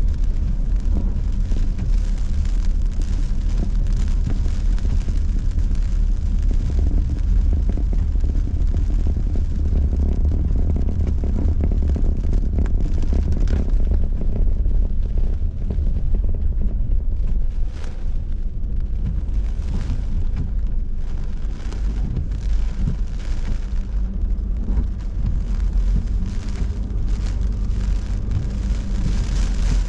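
Steady low rumble of a car driving on a rain-soaked road, heard inside the cabin, with tyre and rain noise over it.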